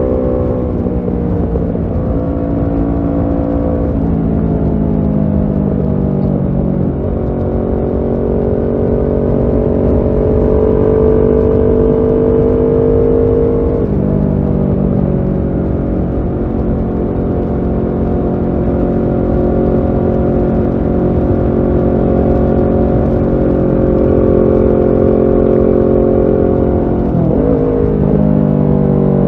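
Kawasaki Ninja 650's parallel-twin engine running through a Shark SRC-4 full aftermarket exhaust while riding. The engine note holds steady between several changes in pitch, with a gliding change near the end, over a constant rushing noise underneath.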